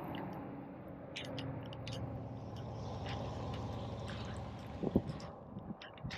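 Water sloshing and dripping against a kayak, with a few small knocks and one louder thump about five seconds in.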